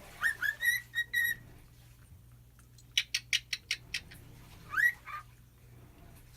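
Cockatiel laughing: a few short rising whistled chirps, then around three seconds in a quick run of about seven clipped notes like a chuckle, and another rising chirp near the five-second mark.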